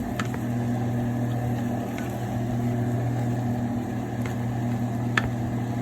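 Steady low hum, like a kitchen appliance or fan motor, with a few faint ticks.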